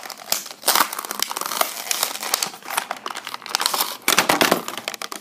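Clear plastic blister packaging of a diecast toy car crinkling and crackling as it is handled and pried away from its cardboard backing card. There is a louder burst of crackling about four seconds in.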